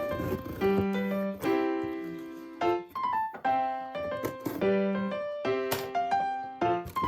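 Background music: a melody of separate notes played on a piano-like keyboard.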